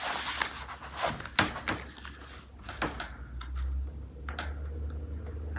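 A stiff diamond-painting canvas and its plastic cover sheet being handled: rustling, with a few sharp crackles and clicks of the plastic as hands smooth it and pick at a corner.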